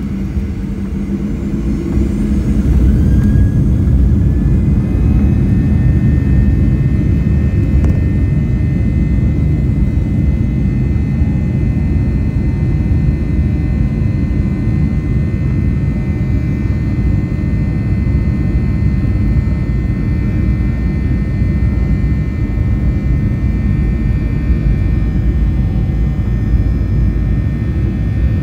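Boeing 737-800's CFM56-7B jet engines heard from inside the cabin, spooling up to takeoff thrust: a loud rumble that builds over the first few seconds and then holds steady, with a steady high whine above it.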